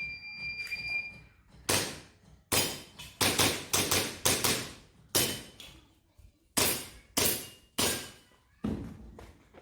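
Shot timer start beep, held for about a second, then a fast, irregular string of about a dozen airsoft pistol shots fired at the targets.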